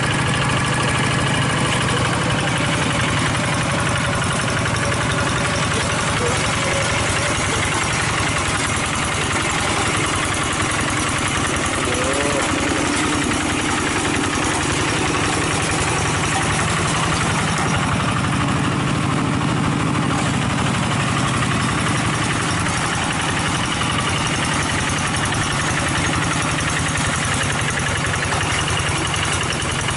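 Single-cylinder diesel engine of a two-wheel hand tractor running steadily as the machine is worked through deep, sticky paddy mud where it keeps getting bogged down.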